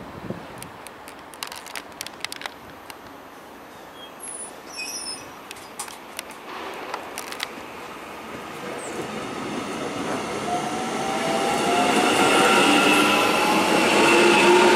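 Korail Class 311000 electric multiple unit pulling away from the platform. Its traction motors give a whine that rises in pitch and grows steadily louder from about halfway through, after a few light clicks and knocks in the first seconds.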